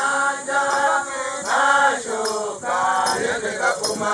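A group of Hadzabe voices singing a chant together for a traditional dance, in short phrases with brief breaks between them.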